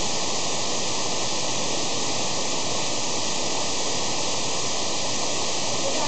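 Waterfall on the slopes of Gunung Putri Tidur, Coban Watu Dasar, its water falling down a rock face and splashing onto the rocks below. A steady rushing noise.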